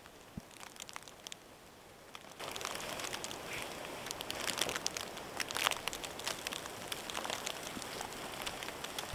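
Wind-driven sleet and snow pattering on a taut tarp: sparse light ticks at first, then a sudden louder rush of dense crackling patter about two and a half seconds in.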